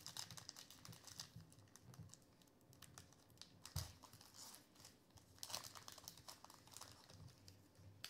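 Foil wrapper of a Topps Allen & Ginter trading-card pack being torn open and the cards slid out of it: a run of small crinkles and clicks, with one sharper knock about four seconds in.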